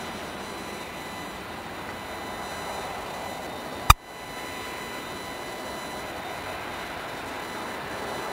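Airbus A380's four Engine Alliance GP7200 engines at taxi idle: a steady jet rush with a faint whine. A single sharp click cuts across it about four seconds in.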